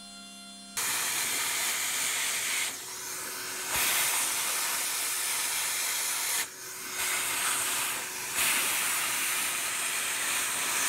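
Vacuum cleaner sucking up aluminium chips through its hose: a loud rushing hiss that starts suddenly about a second in and dips briefly three times as the nozzle moves over the panel.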